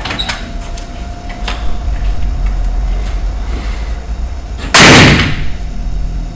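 A single loud gunshot about five seconds in, dying away over half a second, preceded by a low rumble that builds up beforehand and a few faint clicks.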